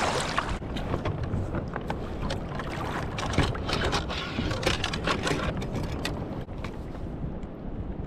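Water splashing and lapping around a fishing kayak, with wind on the microphone. There are many short splashes or knocks for about the first six seconds, then it settles to a duller wash.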